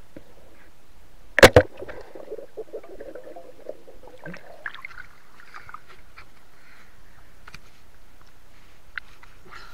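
Underwater speargun shot: two sharp snaps close together about a second and a half in, followed by a few seconds of underwater rustling and small ticks, then scattered faint clicks.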